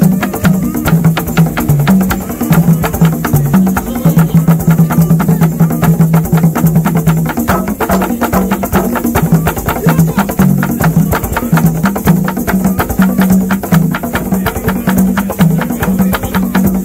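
Congolese mutuashi dance music with fast, dense drumming and sharp wooden clicks. Under it runs a low bass line that holds and steps between two or three notes.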